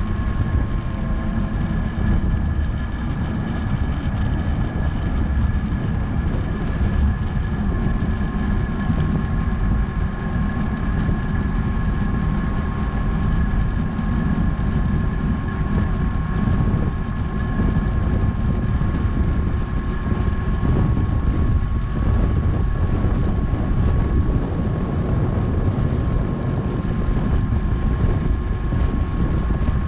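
Wind rushing over a GoPro action camera's microphone on a fast downhill bicycle ride: a steady low rumble, with a thin steady whine running underneath.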